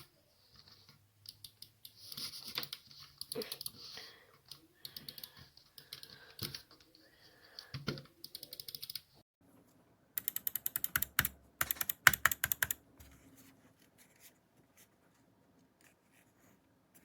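Rapid plastic clicking of keys or buttons, like typing or button presses, in uneven bursts with some rubbing between them. The loudest and densest run of quick clicks comes about ten to thirteen seconds in, then only a few faint clicks follow.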